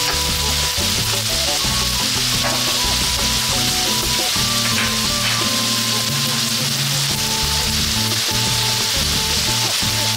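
Sliced meat sizzling steadily in oil in a hot wok.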